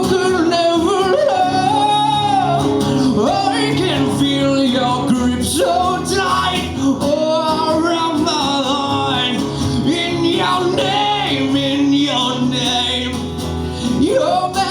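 A live band playing with a male lead singer, who sings long, wavering notes over steady guitar chords.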